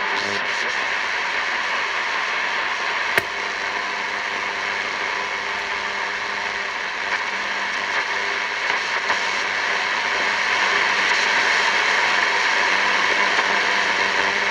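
Grundig Ocean Boy 210 portable radio hissing with static while it is tuned between stations, with one sharp click about three seconds in.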